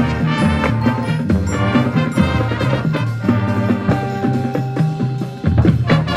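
Marching band playing a field show: wind instruments with drums and front-ensemble percussion. The music dips briefly, then comes back in with a loud full-band accent near the end.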